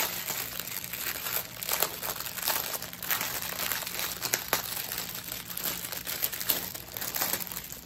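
Clear plastic bag crinkling and crackling continuously as it is handled and opened around a strip of small bagged diamond-painting drills.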